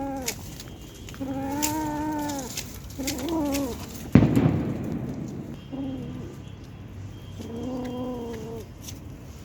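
A cat meowing again and again, in drawn-out meows of up to about a second each with short gaps between them. A sharp knock comes about four seconds in.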